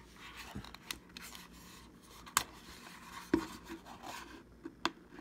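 Hands handling the plastic housing of an LED grill light: fingers rubbing and scraping on the plastic and rubber edge, with a few sharp light clicks scattered through.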